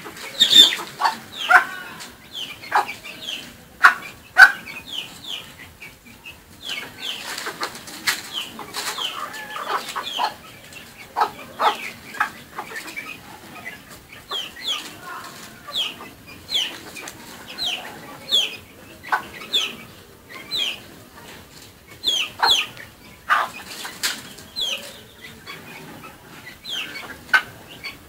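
Chickens clucking and peeping: a string of short, high calls about every second, with a few lower clucks and sharp clicks mixed in, mostly in the first few seconds.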